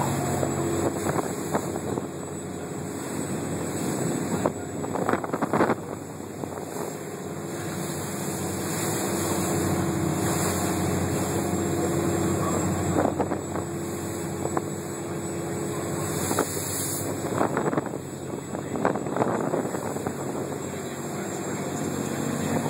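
Lobster boat's engine running steadily under way in heavy seas, with strong wind buffeting the microphone and the rushing wash of the hull through the waves. A few sudden louder gusts come and go.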